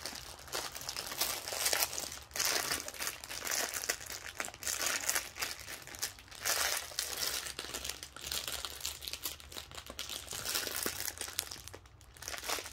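Small plastic bags of diamond-painting drills crinkling as they are handled, in an irregular run of crackles.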